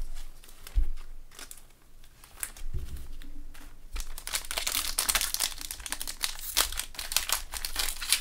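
Trading cards set down on a table with a couple of soft knocks, then from about four seconds in a foil trading-card pack wrapper crinkling continuously as it is handled and pulled open.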